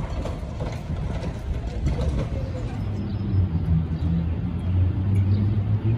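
Wind buffeting an outdoor microphone: a heavy, uneven low rumble, with a steadier low hum joining in about halfway through.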